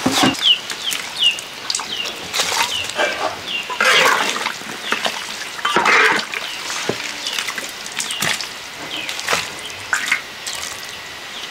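Braised bamboo shoots and their brine being scooped into a basin: irregular splashes of liquid and knocks of utensils, loudest around four and six seconds in. A few short falling chirps of a bird sound in the first second or so.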